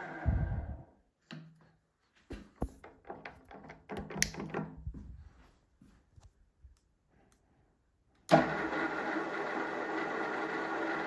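IMA IG 30-8 geared-head drill press spinning down in the first second after being switched off, followed by a run of clicks and clunks while it stands still. About eight seconds in, its two-speed three-phase motor starts abruptly and the geared head runs on with a steady hum.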